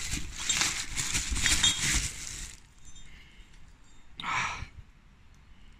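Bubble wrap crinkling and crackling as it is pulled off a metal wheel spacer by hand, for about two and a half seconds; then quieter, with one short rustle a little past four seconds in.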